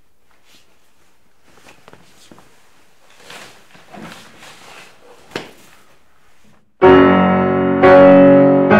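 Grand piano played with loud, full chords that start suddenly about seven seconds in, with a second strike about a second later. Before that there are only faint small knocks and rustles.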